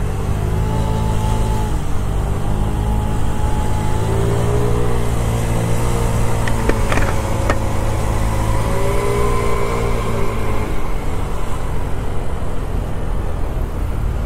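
Motor scooter running on the move, its engine note rising and falling in pitch with the throttle over a steady low rumble, with a few short knocks about seven seconds in.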